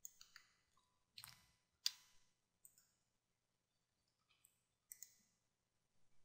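Faint, sparse clicks of a computer mouse: a quick few at the start, a louder single click about two seconds in, and a double click near five seconds.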